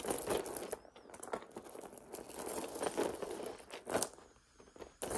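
Faint handling noise of metal chain necklaces being moved on a tray: irregular light clinks and rustles, with a short pause near the end.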